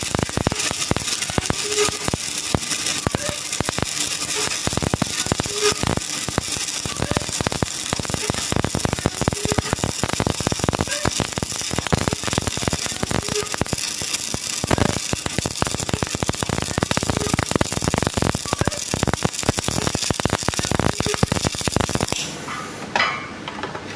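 Electric arc welding: a continuous, loud crackling sizzle from the arc, stopping about two seconds before the end.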